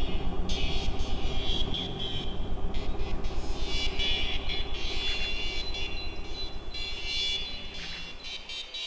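Soundtrack sound: a low rumbling drone that pulses evenly about six times a second, with a wavering higher whine over it, easing off in the last couple of seconds.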